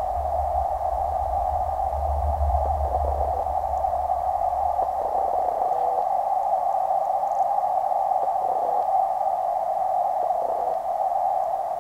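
Steady hiss of creek water recorded underwater through a waterproof camera's housing. A low rumble sits underneath it until about five or six seconds in.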